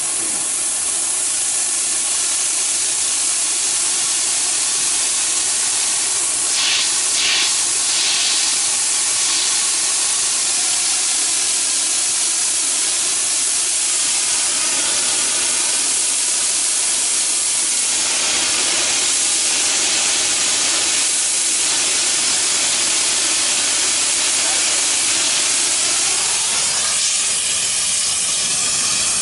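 Gas preheating torch burning with a steady, loud hiss as it heats the rail ends in the sand mould before an aluminothermic (thermite) rail weld, the preheat stage that brings the rail ends to around 750 °C.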